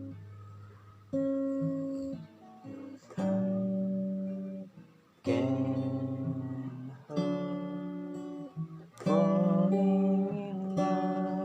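Acoustic guitar playing slow chords, a new chord struck about every two seconds. A wavering, voice-like line rises over the guitar about nine seconds in.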